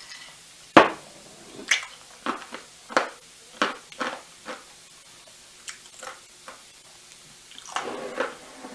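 A metal utensil knocking and scraping against a non-stick frying pan in about a dozen irregular clinks while turning food as it reheats.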